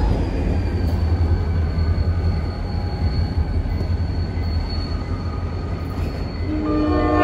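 Train rumbling on the tracks with a steady high-pitched wheel squeal. Near the end a sustained chord of several steady tones comes in and grows louder.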